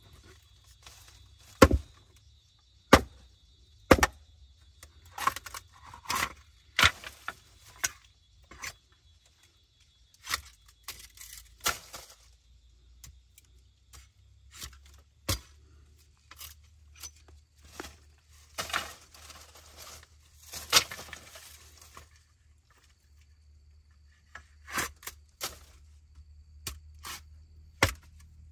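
Sharp knocks of a hand tool striking hard material, the first few about a second or so apart and then irregular, with scraping and rustling between them.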